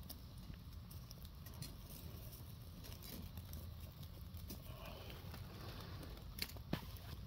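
Small wood fire crackling faintly under a wire grill grate, with scattered soft clicks and two sharper pops near the end.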